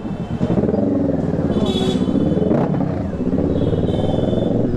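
Kawasaki Z650's parallel-twin engine running at low revs as the motorcycle rolls slowly, its pitch wavering a little up and down. A thin high tone sounds briefly twice over it.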